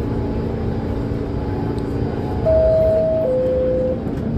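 Steady low rumble and hum of a subway car. Midway through, a two-note descending chime sounds, a higher note then a lower one, each under a second: the New York City subway's door-closing chime.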